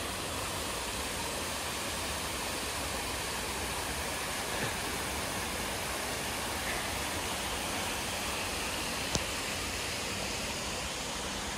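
Steady rush of water falling from an artificial waterfall into a swimming pool, with one brief click about nine seconds in.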